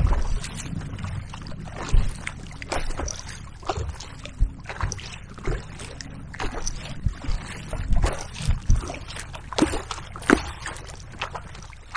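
Kayak paddle driven hard in fast power strokes, the blades splashing in choppy water in a quick, irregular run about one or two a second, over wind rumbling on the microphone.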